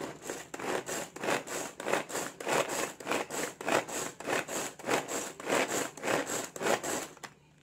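Pigeon Handy Chopper being worked by its pull cord, about three pulls a second; each pull is a short whirr of the cord running out and the blades spinning through quartered tomatoes.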